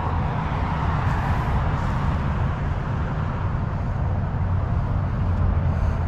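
Steady outdoor background noise: an even low rumble with a faint hiss over it, with no distinct event.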